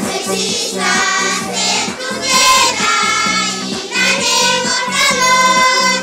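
A group of children singing a song together with musical accompaniment, holding long notes.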